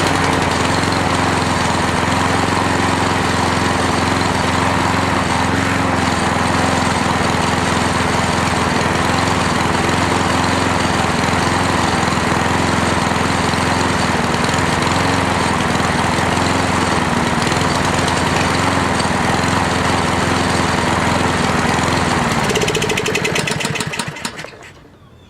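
Cub Cadet lawn mower's 173cc OHV single-cylinder engine running steadily on its new carburetor, then slowing and dying near the end. The engine has stalled, which the owner blames on a bad spark plug.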